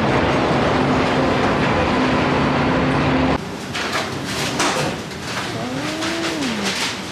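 Loud steady vehicle noise with a low hum, which drops suddenly about three seconds in to quieter rumbling with scattered clicks and rattles. A short tone rises and falls near the end.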